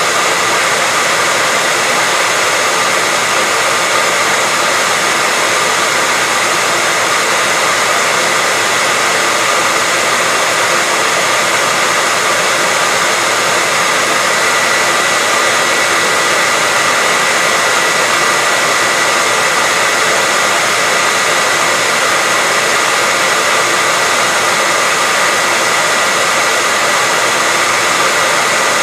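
Hair dryer running steadily: an even rush of blown air with a steady high whine.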